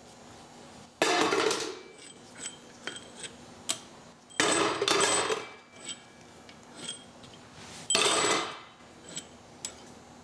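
Impact wrench run in three short bursts, a few seconds apart, spinning out the head bolts of a Willys F-head four-cylinder engine, with light metallic clinks of bolts and parts handled between the bursts.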